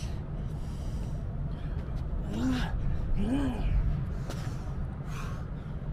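A man breathing hard and gasping from exertion during a high-intensity bodyweight workout, with two short strained grunts about two and a half and three and a half seconds in, over a steady low rumble.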